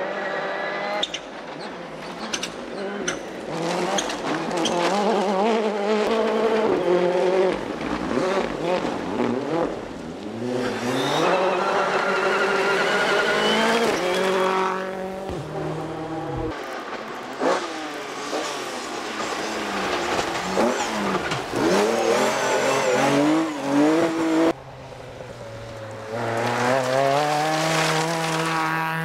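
Rally cars driven hard on a gravel forest stage, one after another. Their engines rev up and down, the pitch climbing and dropping back again and again with each gear change and lift-off through the bends.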